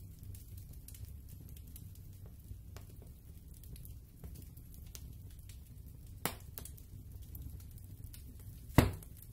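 Cardboard jigsaw puzzle pieces being picked up, shuffled and set down on a tabletop: light taps and clicks, with two sharper clicks about six seconds in and near the end, the second the loudest, over a low steady hum.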